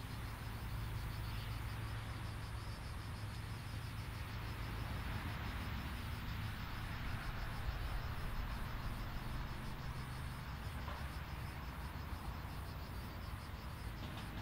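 Distant airliner jet engines running steadily on the runway, a low hum under a broad hiss, while insects chirp in quick high-pitched pulses, about three a second.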